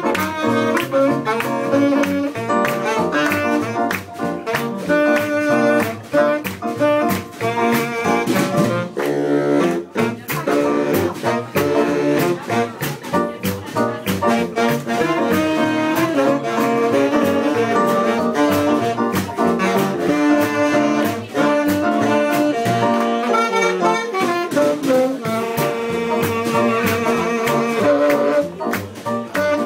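Small jazz band playing a swing tune live: baritone saxophone and clarinet over piano and drums, with a steady beat.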